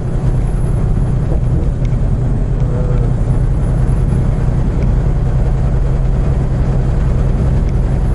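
Semi truck cruising at highway speed, heard from inside the cab: a steady low engine and road drone with tyre noise.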